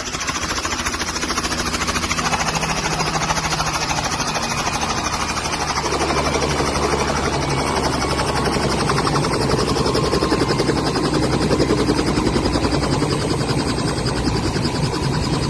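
Robinson R44 helicopter running on the ground with its two-bladed main rotor turning: a fast, even chop of the blades over the piston engine's drone, growing a little louder from about six seconds in.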